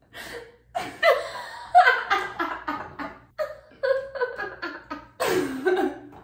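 Two young women laughing hard in fits of giggles and chuckles, with short choppy bursts that swell loudest about two seconds in and again near the end.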